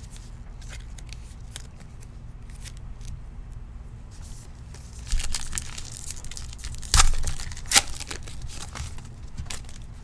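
Trading-card pack (2021 Panini Legacy football) being torn open by hand. Scattered light crinkles and clicks give way to a burst of tearing about five seconds in, then two sharp rips near the seven- and eight-second marks.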